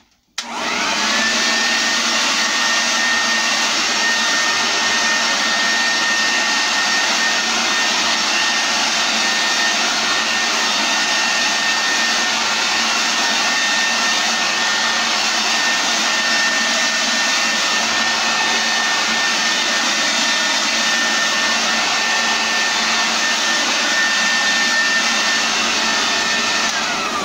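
Homelite handheld leaf blower switched on: its whine rises as it spins up, then it runs at a steady speed with a loud rush of air and a high whine, and winds down with a falling whine at the end.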